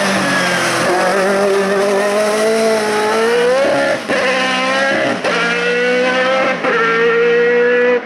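Single-seater formula race car's engine at full throttle as it passes and accelerates away uphill. The engine note climbs through the revs, broken by three quick upshifts about a second apart near the end, each a short dip and drop in pitch.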